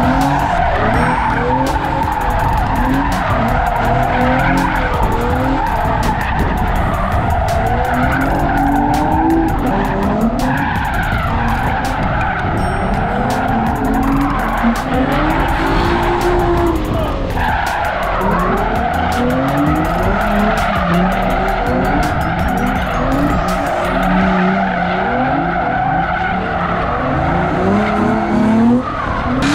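Drift cars sliding with a continuous tyre screech, their engines revving up and falling back repeatedly as the drivers work the throttle.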